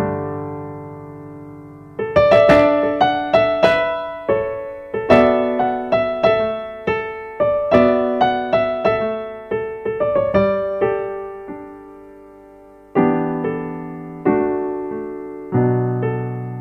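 Background piano music: a melody of struck notes, each ringing and fading over low chords. It thins to a single fading chord for about two seconds before picking up again.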